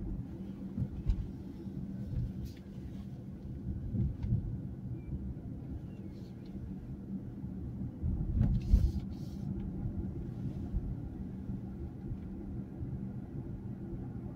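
Road and engine noise inside a car's cabin while driving: a steady low rumble with a few brief thumps, the loudest about nine seconds in.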